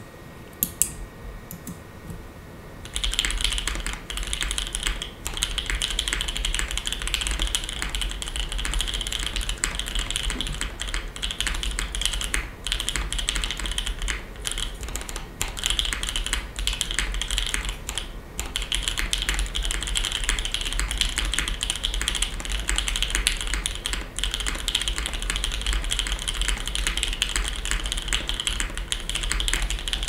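Fast two-handed typing on a custom mechanical keyboard (KFE CE, top-mounted polycarbonate plate) with lubed C3 Equalz Banana Split linear switches and GMK keycaps. A few separate key presses come first, then a dense, continuous stream of keystrokes starts about three seconds in.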